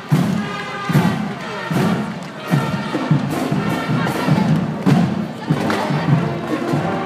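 Marching band playing, brass (trombones and sousaphones) over a heavy beat that falls about every 0.8 seconds.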